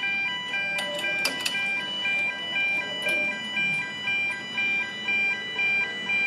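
Level crossing's electronic two-tone warning alarm sounding, alternating high and low tones about twice a second, as the barriers lower to warn of an approaching train. A few clicks about a second in.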